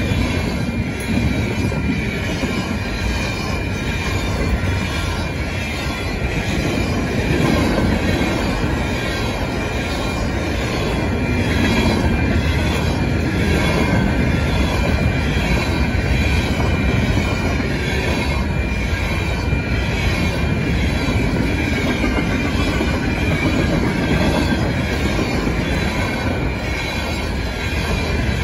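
Freight cars of a fast Canadian Pacific train rolling past: a steady rumble of steel wheels on rail with a clatter of wheels over rail joints and a thin, steady high squeal.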